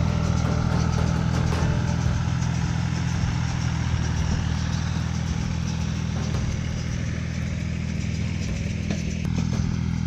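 Massey Ferguson 245 DI tractor's three-cylinder diesel engine running steadily under load, driving a mini round baler that is picking up and baling rice straw, with the baler's mechanical clatter over the engine.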